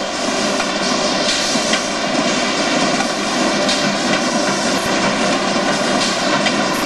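Simon corrugated board machine with a RollvaC lead-edge feeder running: a steady mechanical drone with a hum of several fixed tones and a few light clicks. It cuts off suddenly right at the end.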